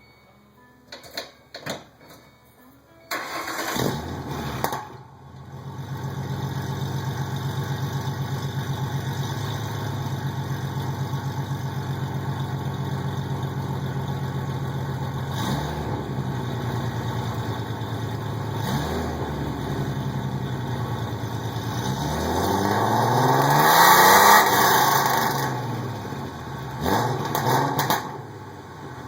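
Ford Mustang 4.0-litre SOHC V6 with long-tube headers, no catalytic converters and Cherry Bomb glasspack mufflers, starting up about three seconds in and settling into a steady idle. It is revved briefly twice, then given a longer, louder rev about three-quarters of the way through, with two quick blips near the end.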